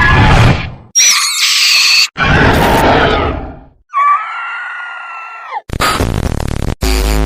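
A string of horror sound effects, cut one after another: a loud noisy rush, a high shriek falling in pitch, another rush, then a drawn-out wailing cry about four seconds in, with a low droning tone starting near the end. The screams are staged as a ghostly witch's (chudail's) voice.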